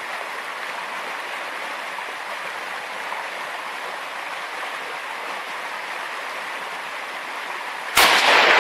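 Steady rush of a shallow river over stones. Near the end comes a single loud rifle shot with a long rolling echo: a hunter firing at a deer crossing the river, which he then says he hit.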